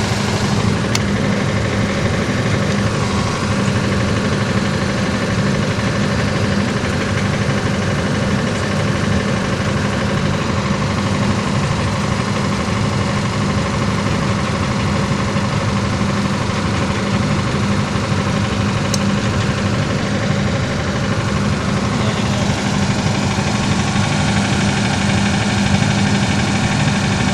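An engine running steadily at constant speed, a continuous even hum.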